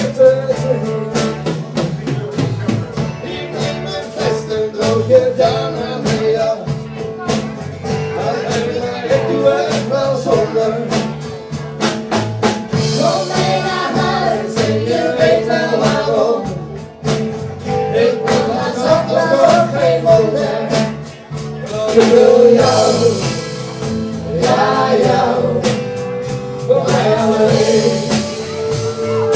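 Live acoustic band playing a song: acoustic guitars strummed to a steady beat, with a bending melody line on top that grows stronger from about halfway through.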